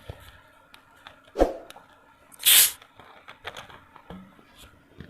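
Eating preparations: scattered small clicks and taps of handling food and tableware, a soft thump about one and a half seconds in, and a short, loud hissing or tearing noise about two and a half seconds in.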